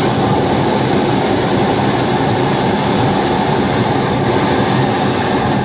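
Hot-air balloon burner firing in one long, loud, steady blast that cuts off suddenly near the end.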